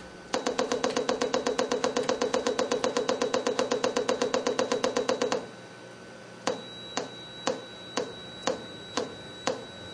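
Small speakers of a frequency-therapy generator clicking out a very low-frequency test signal: a fast, even ticking of about eight clicks a second that stops suddenly about five seconds in. After a second's pause, slower single clicks follow about two a second.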